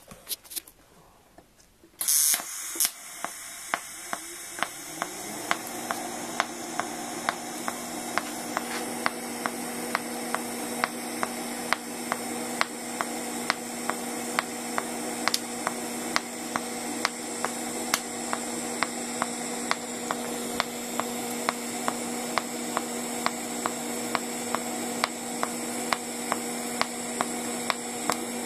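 Migatronic PI200 AC/DC inverter TIG welder striking an arc about two seconds in, then a steady arc hum with a sharp tick about twice a second. The ticks are the pulse switching between its 100-amp high and 10-amp low settings.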